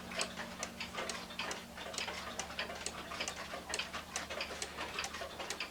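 Small one-day hunter cuckoo clock's mechanical movement ticking: a steady, even tick-tock from the pendulum escapement.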